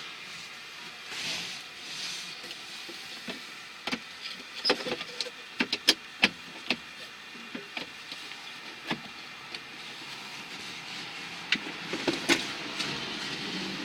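Scattered sharp clicks and light knocks, clustered about four to seven seconds in and again near the end, over a steady faint hiss: the handling and fitting of parts in a small van's interior during a blower motor job.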